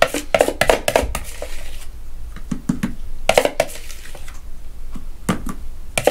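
Spoon scraping and knocking against a plastic mixing bowl while a yogurt mixture is scooped out: irregular short clicks and scrapes.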